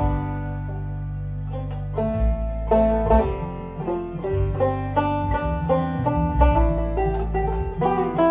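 Deering Clawgrass 2 banjo played clawhammer style over a Band-in-a-Box backing track with a held bass line. The banjo plays few notes for the first two seconds, then a busier run of picked notes.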